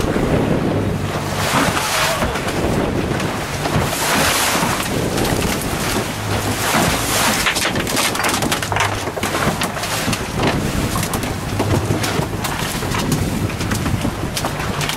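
Boat engine running steadily at trolling speed, with wind buffeting the microphone and water rushing past the hull in gusty surges.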